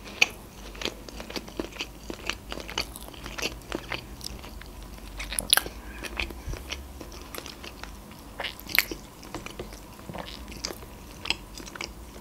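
A person chewing food with the mouth closed, close to the microphone: an irregular run of small clicks and crunches.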